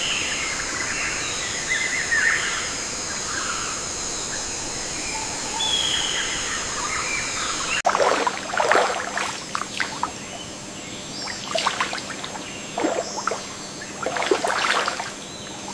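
Outdoor ambience with birds chirping over a steady high hiss. About halfway through it changes abruptly to a run of short, sharp, louder sounds that come irregularly until near the end.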